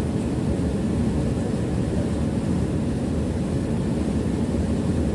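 Mercedes-Benz bus cruising at steady speed on an open road, heard from the driver's seat: an even low drone of engine, tyres and road noise that does not rise or fall.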